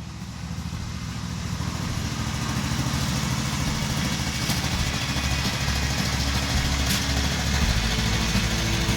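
An engine running steadily with a low, even beat, fading in and growing louder.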